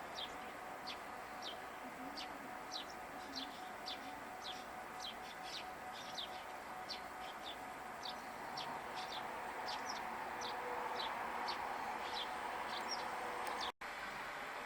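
A small songbird calling over and over with short, high, downward-sliding chirps, about two a second.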